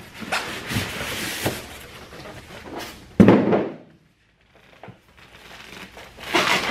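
Large cardboard shipping box being handled and rummaged in: rustling and scraping of cardboard with small knocks, and one loud thump about three seconds in.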